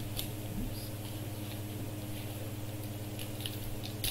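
Foil wrapper of a Panini Mosaic basketball card pack crinkling and tearing as it is opened by hand, with scattered faint crackles and a sharp click near the end. A steady low hum runs underneath.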